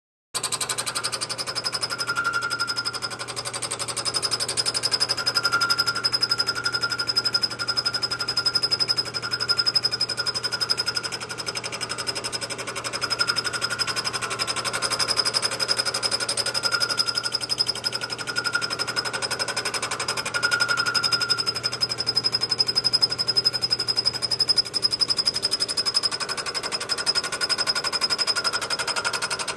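Milling machine with a boring head cutting the inside radius of an aluminium frame: a loud, steady cutting noise that starts abruptly just after the beginning, with a high steady whine over it and a lower wavering tone. A low hum drops out near the end.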